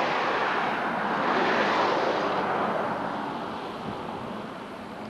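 Broad rushing noise of a passing engine, loudest in the first couple of seconds and fading away over the rest.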